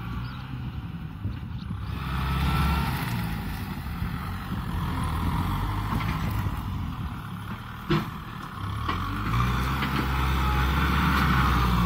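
Kubota M6040SU tractor's four-cylinder diesel engine running under load while pushing soil with its front blade, with one sharp knock about eight seconds in.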